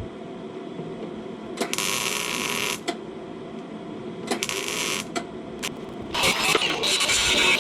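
Welding on a car's rocker panel: abrupt on-and-off bursts of hissing crackle, two short ones and then a longer, louder run from about six seconds in, over a steady low hum.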